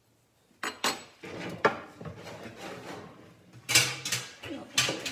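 Kitchen utensils clinking and clattering: a metal spoon and dishes knocking together in a handful of sharp clinks, with scraping and rustling between them.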